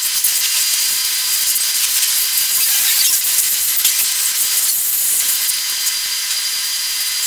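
A steady, high hiss with a few faint whining tones through it and little in the low range.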